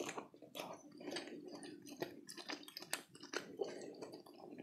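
Close-miked wet chewing of beef meatball and beef fat in spicy broth, with an irregular run of sharp mouth clicks and smacks.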